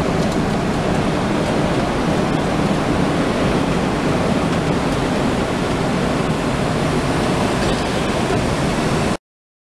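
Steady in-flight cabin noise of a Boeing 747-400, an even rush of airflow and engine noise heard inside the cabin. It cuts off suddenly near the end.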